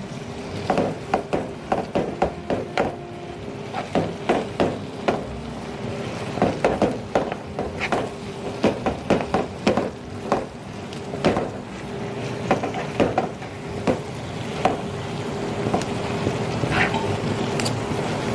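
Metal utensils scraping and knocking irregularly against a nonstick frying pan as sticky glutinous rice is stirred and turned over.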